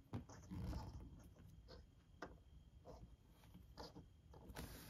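Quiet room with a few faint, scattered clicks and light knocks of small plastic miniatures being handled and set down.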